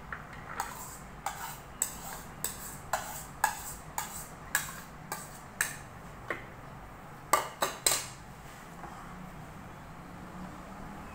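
A bowl is knocked again and again against the rim of a plastic food-processor jar to shake out boiled chana dal, giving sharp knocks about two a second. A run of three louder clacks comes at about seven to eight seconds in.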